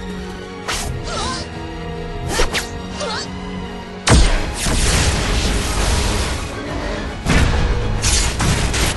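Background music with held notes, over added action sound effects: three quick swooshes in the first three seconds, then a sudden loud boom about four seconds in that carries on as a noisy blast for about three seconds, and another heavy hit near the end.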